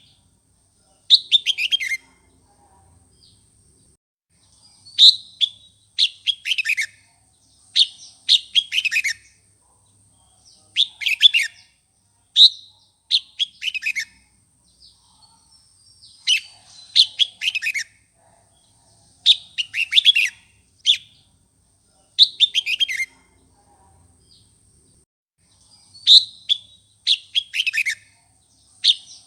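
Red-whiskered bulbul singing: a string of short phrases of quick, falling whistled notes, one every second or two, with a brief pause near the end. This is the heated, challenging song used to provoke other bulbuls into singing back.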